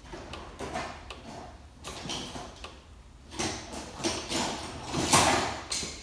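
Hand tools clattering and drawers of a metal tool chest being opened and shut while someone rummages for a tool: an irregular run of knocks and rattles, loudest about five seconds in.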